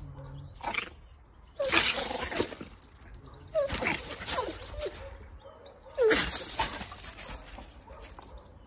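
Dogs scuffling on loose gravel: three sudden noisy outbursts, about two seconds apart, each opening with a short, sharp bark.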